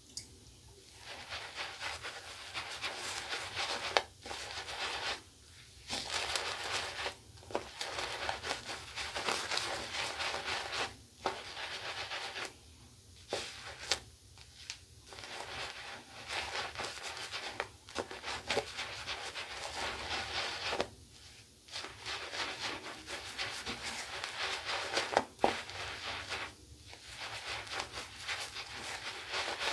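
Synthetic shaving brush swirling and scrubbing soap lather over two days' stubble on the face: a wet, squishy rubbing in stretches of a few seconds with short pauses between them, and an occasional click.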